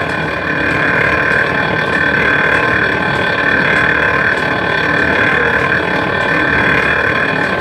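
Coconut oil mill machinery running steadily, a loud mechanical drone with a constant high whine over it.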